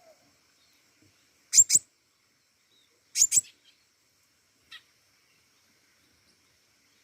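Pentis raja, a small songbird, calling: two sharp, high double chirps about a second and a half apart, then a fainter single chirp.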